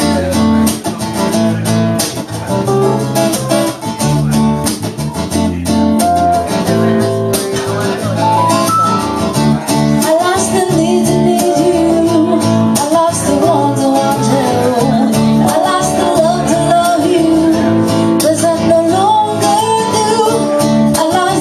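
Live acoustic band playing a song: strummed acoustic guitar chords, with a singing voice carrying the melody from about eight seconds in.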